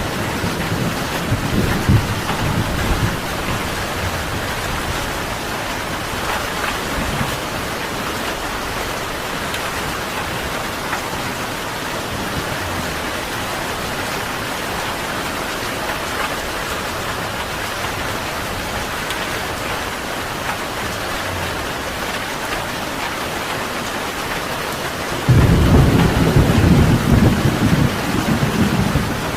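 Steady heavy rain with thunder rumbling. A low roll of thunder fades over the first few seconds, and a louder peal breaks in suddenly near the end and keeps rumbling.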